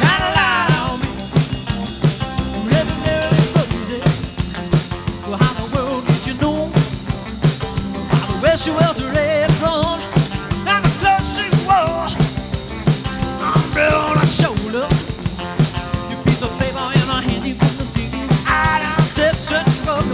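Live rock band playing an instrumental passage: a drum kit keeps a steady beat under electric guitar lines that bend in pitch.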